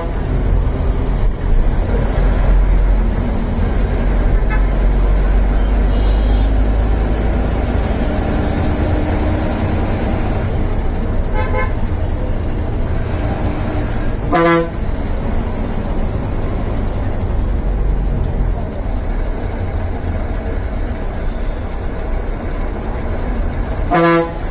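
Steady low engine and road rumble inside a moving city bus, with short vehicle horn honks: a faint one partway through, and louder single honks about halfway through and just before the end.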